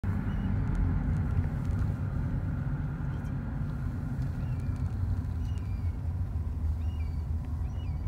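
Wind buffeting the microphone as a steady low rumble, with faint short chirps now and then.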